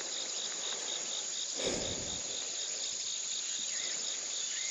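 A steady, high-pitched chorus of insects, with a brief low thump about a second and a half in.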